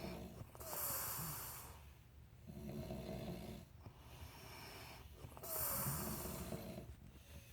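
People snoring in their sleep: low, rattling snores alternating with loud, hissing breaths, the hissing breaths coming about a second in and again about five seconds later.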